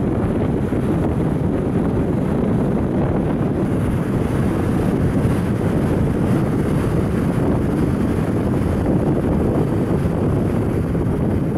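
Steady wind buffeting the microphone: a dense low rumble with a hiss above it, even throughout, with no clear engine note.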